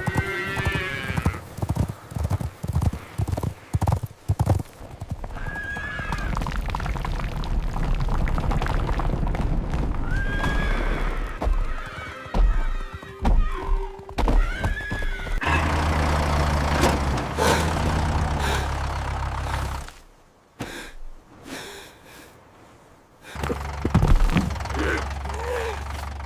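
Animal sound effects: a whinny that falls in pitch at the start, a few shorter arching calls later, and hoof clip-clops.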